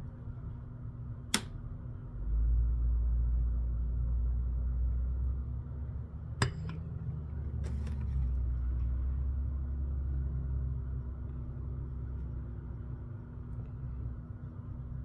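A low rumble that sets in about two seconds in, with three sharp plastic clicks: a white plastic lid and a plastic water bottle being handled over a sink.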